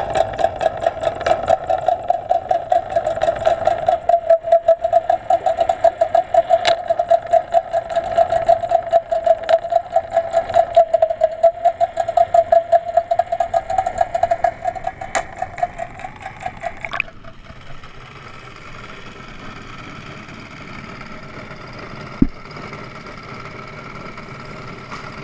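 Boat engine heard from underwater as a steady, rapidly pulsing drone. About 17 s in the camera breaks the surface and it changes abruptly to a quieter, steadier engine hum, with one sharp knock a few seconds later.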